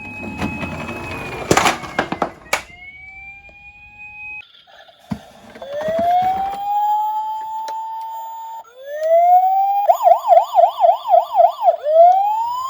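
Electronic ambulance siren from a toy ambulance: slow rising wails, then a fast warbling yelp of about four cycles a second, and a rising wail again at the end. In the first couple of seconds the plastic toy car rattles and clicks as it runs down the slope.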